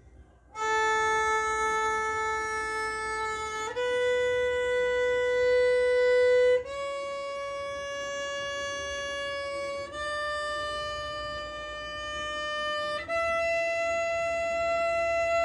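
Violin bowed on its A string, playing five long notes one after another in a rising step-by-step line: A, B, C, D, E. Each note is held about three seconds.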